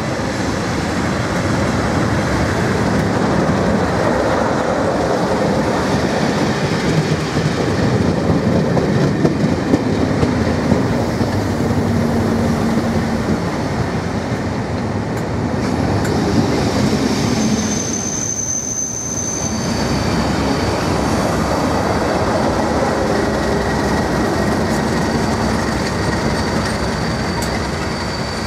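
Class 37 diesel locomotives and a rake of coaches rolling in along the platform, the locomotives' English Electric engines running under the noise of the wheels on the rails. From a little past halfway, a steady high-pitched brake squeal sets in as the train slows for its stop.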